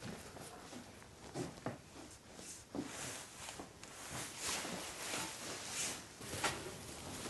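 Footsteps on a barn floor, then a pitchfork digging into and tossing loose hay: a series of dry rustling swishes from about halfway through.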